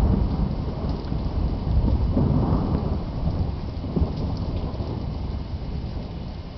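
A long rumble of thunder, loudest at first, swelling again about two seconds in and slowly dying away, over steady rain.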